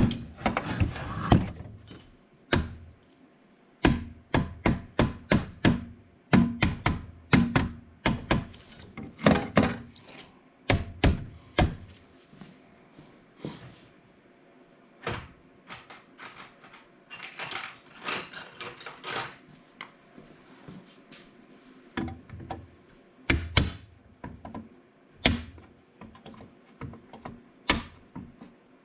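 Irregular knocks, taps and clatter of tools and parts being handled during hands-on repair work, some strikes coming in quick runs, with short quiet gaps between.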